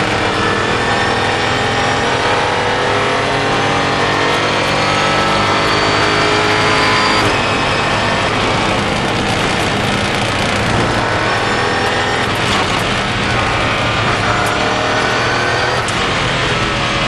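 Mosler Super GT race car's V8 engine heard onboard, pulling hard with its note rising steadily for about seven seconds, then the car lifting off and slowing, its note less clear.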